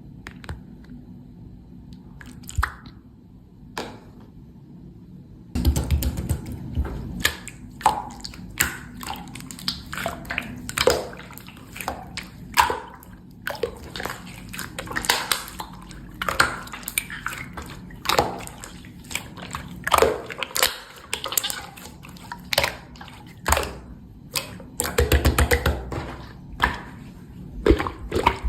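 Hand-played slime, squished and pressed, making sticky wet squelches and many sharp little pops and clicks. Only a few faint clicks at first, then from about five seconds in the squishing and popping run on densely.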